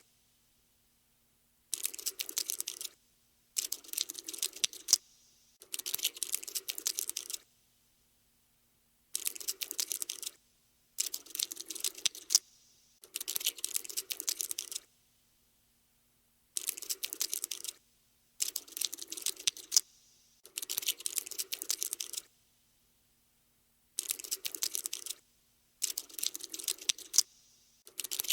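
Cockroach scuttling sound effect: bursts of rapid, light clicking and scratching, each lasting about a second or so, stopping and starting again about a dozen times.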